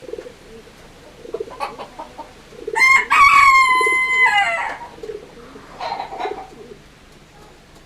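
A rooster crowing once: a loud call about two seconds long, starting about three seconds in, held steady and dropping in pitch at the end. Soft low calls from other birds repeat about once a second underneath, with a few short calls near the end.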